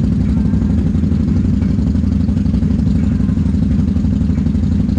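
ATV engine running steadily with a low-pitched rumble, heard close up from the rider's seat.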